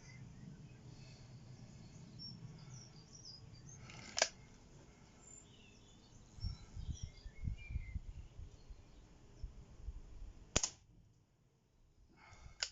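Slavia ZVP break-barrel spring air pistol: a sharp click about four seconds in, handling and loading noises, then a single shot with a sharp crack about ten and a half seconds in. Faint bird chirps sound in the background.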